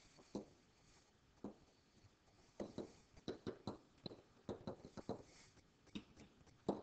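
Faint clicks and taps of a pen writing on a digital board, a scattered few at first, then a dense run of them in the second half as numbers are written.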